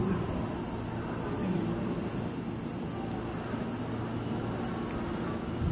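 A steady, loud, high-pitched chorus of cicadas, with a low rumble underneath from an approaching electric locomotive.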